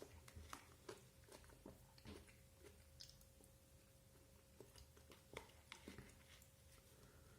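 A person chewing food close to the microphone, with soft, irregular wet mouth clicks and smacks.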